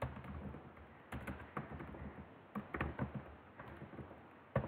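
Typing on a computer keyboard: a run of irregular keystroke clicks, with one louder click near the end.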